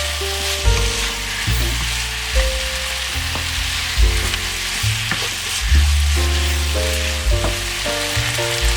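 Stir-fry sizzling steadily in a hot pan. Background music with deep bass notes changing about once a second carries over it.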